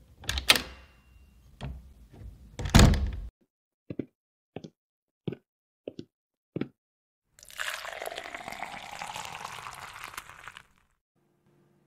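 Coffee-making sound effects: a few sharp knocks and thunks, then five short evenly spaced clicks, then liquid pouring into a cup for about three seconds.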